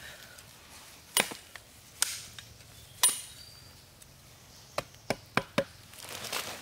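Machete chopping into a wooden stake: three sharp, ringing strikes about a second apart, then four lighter, quicker cuts. A short rustle of leaves or wood being handled comes near the end.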